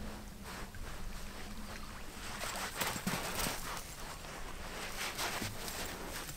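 Wind on the microphone with a steady low rumble, small waves lapping at the shore, and irregular scuffing steps on sand that come thickest about two and a half seconds in and again near the end.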